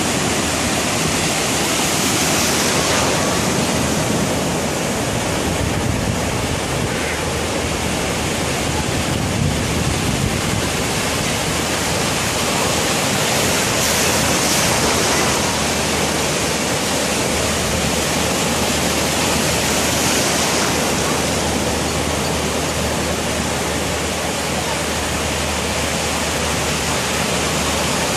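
Ocean surf breaking and washing through the shallows: a steady rush of water noise that swells gently every few seconds.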